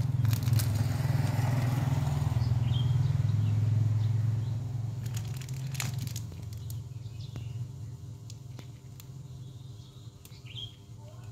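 A vehicle engine runs close by, loud for the first four seconds or so and then fading, over plastic packaging crinkling and clicking as a motorcycle battery's electrolyte pack is unwrapped and handled. There is a sharp click about six seconds in, and a bird chirps a few times.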